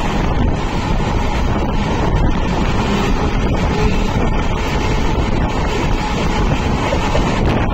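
Steady rush of wind hitting the microphone at the open doorway of a moving passenger train, over the train's running rumble.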